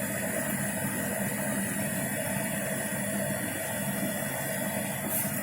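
Bosch Series 6 Vario Perfect washing machine running mid-cycle: a steady motor-and-drum hum with a constant hiss.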